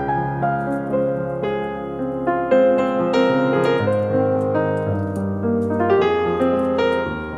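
Background piano music: a gentle melody of sustained notes over a held bass line.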